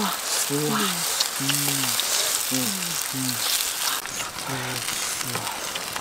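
Mushrooms frying in hot oil in a pan, a steady sizzle, stirred with a wooden spatula. A man's voice speaks in short phrases over it.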